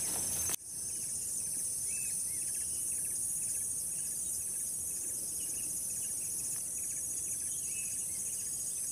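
A steady, high-pitched chorus of insects shrilling in the forest, with a fast pulsing trill on top and short repeated chirps at a lower pitch.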